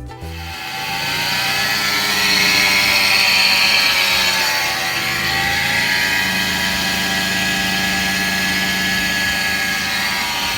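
Toyota RAV4 (XA30) droning from the rear while driving: a loud steady hum with a whine on top that dips in pitch about halfway through and rises again. The cause of the hum is unknown.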